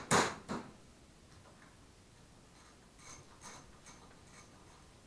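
Metal engine parts and hand tools knocking on a metal workbench during a small-engine teardown: two loud knocks right at the start, then a scatter of light clicks and taps about three to four and a half seconds in.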